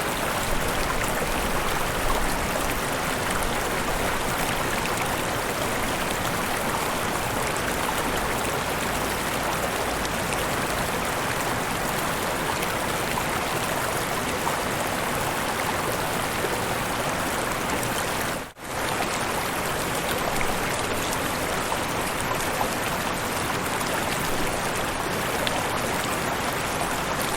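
River and small waterfalls rushing steadily. The sound drops out for a split second about two-thirds of the way in.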